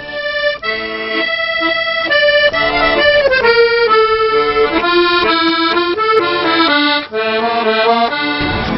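Accordion playing a melody over sustained chords, the notes stepping up and down, with a brief dip about seven seconds in.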